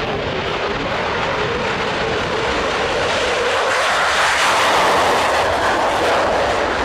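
Fighter jet engine noise, a steady rushing sound that grows gradually louder through the middle and cuts off suddenly near the end.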